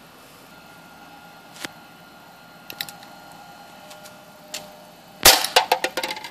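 A few light clicks from a revolver-style pellet gun being handled, then about five seconds in a sharp shot fired through a tennis-ball muzzle cover, followed at once by a quick run of clicks and rattles.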